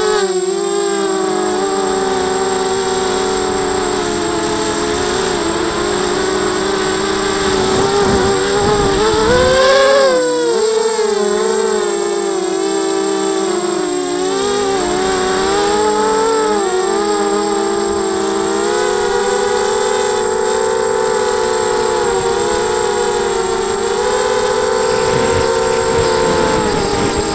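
ZMR 250 mini quadcopter's brushless motors and propellers whining in flight, heard from the quad's own camera, the pitch rising and falling with the throttle. It climbs to its highest, loudest point about ten seconds in, then settles back into a steady whine.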